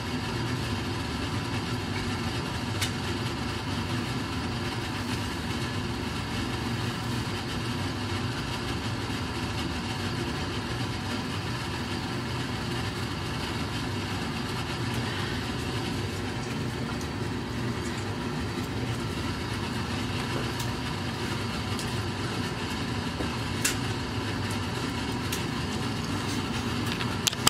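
Steady mechanical hum of a running machine, with a couple of faint clicks.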